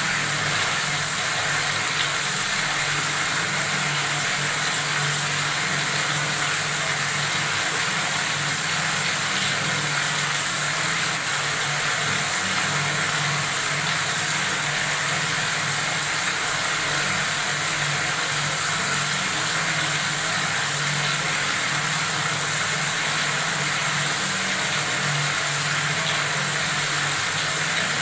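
Tap water running steadily from a faucet, an even, unbroken splashing hiss with a low rumble underneath.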